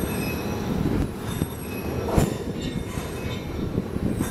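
Rail-train flatcars loaded with long rails rolling past, their wheels rumbling steadily on the track, with one sharp clank about two seconds in.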